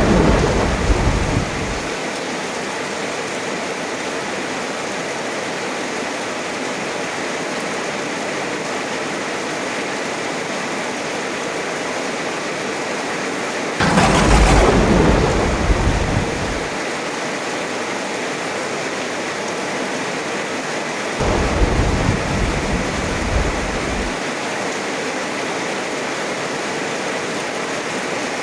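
Heavy rain falling steadily, with thunder three times: a clap dying away in the first two seconds, a loud clap about halfway through, and a softer rumble about three quarters of the way in.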